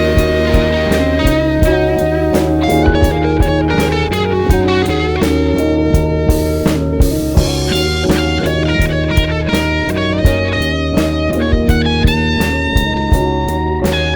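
Instrumental rock music: an electric lead guitar plays sustained melodic notes over a steady drum-kit beat and bass.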